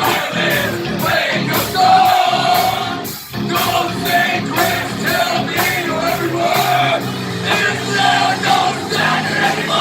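Live heavy metal band jamming loud, with cymbal hits about twice a second and shouted singing over it.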